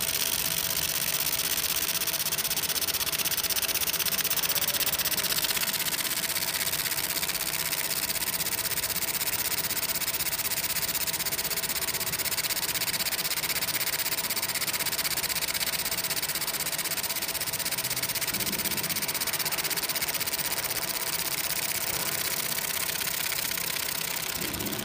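Fiber laser marking machine engraving an image into a black plate: a steady hiss with a faint steady hum underneath.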